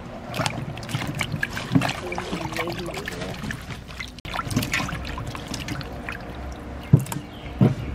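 Water sloshing and splashing in a stainless steel bowl as hands rub and turn vegetables in it to wash them: a busy, irregular run of small splashes, with a couple of sharper thumps near the end.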